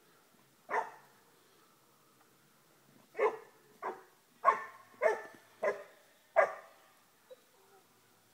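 Puppy barking: one bark, then after a pause a run of six barks about two a second.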